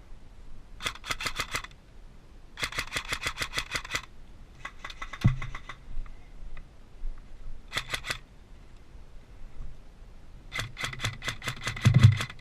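Airsoft guns firing on full auto: five bursts of rapid clicking shots, about eight a second, some of them fainter. There are dull thumps about five seconds in and near the end.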